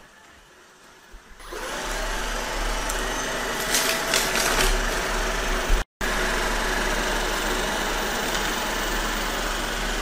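Shark ION robot vacuum running steadily: a motor and brush whir with a low hum, starting about a second and a half in. A few brief rattles come around four seconds in, and the sound breaks off for an instant just before six seconds.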